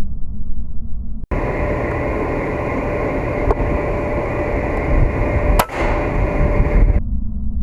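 Strong wind buffeting the microphone with a heavy low rumble. About a second in, the sound turns to a brighter hiss with a faint steady hum, and past the middle there is a single sharp crack, an air rifle shot.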